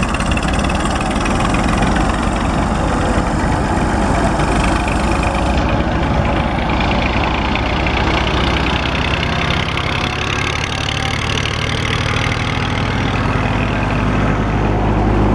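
Massey Ferguson 240 tractor's three-cylinder diesel engine running steadily under load, driving a wheat thresher through its PTO shaft, with the thresher's threshing noise mixed in.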